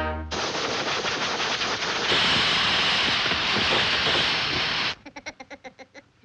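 Cartoon sound effect: a loud steady hissing rush that stops abruptly after about four and a half seconds, followed by a quick run of fainter rattling taps.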